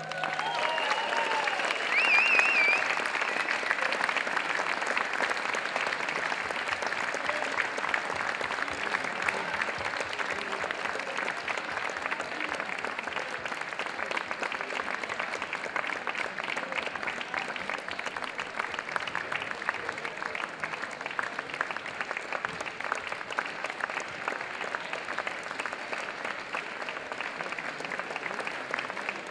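Large audience applauding, loudest in the first few seconds and then easing slightly as it goes on.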